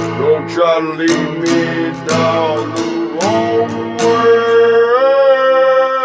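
Acoustic guitar strummed in chords, roughly one stroke a second. From about three seconds in, a man's singing voice slides up into one long, wavering held note as the guitar dies away.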